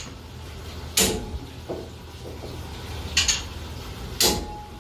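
Three sharp metal clanks, about a second in, after three seconds and near the end; the last one rings briefly. Underneath is a steady low hum.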